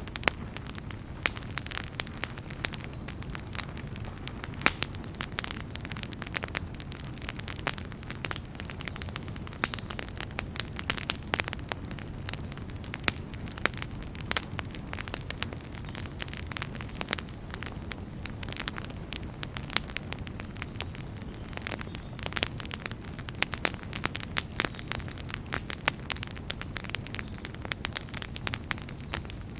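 Wood fire burning in a fireplace: a steady low rumble of the flames with dense, irregular crackles and snaps throughout.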